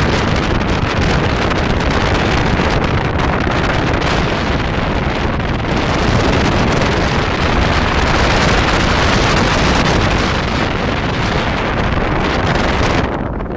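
Steady wind rushing over the microphone of a camera mounted on the outside of a moving car, mixed with road noise; it eases briefly near the end.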